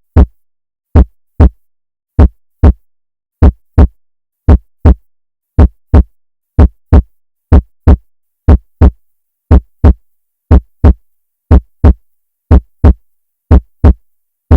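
Heartbeat sound effect: deep double thumps, lub-dub, about one a second and slowly quickening, with silence between.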